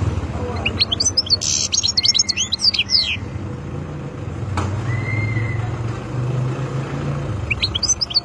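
Wild-caught European goldfinch singing: a quick run of twittering, chirping notes from about a second in, lasting some two seconds, and a second phrase starting near the end. A low engine rumble runs underneath.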